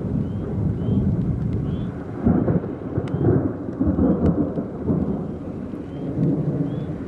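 Rolling thunder: a low rumble that swells and fades several times, loudest from about two to four and a half seconds in.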